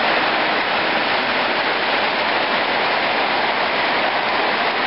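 Rain falling steadily, a loud even hiss of drops on the yard.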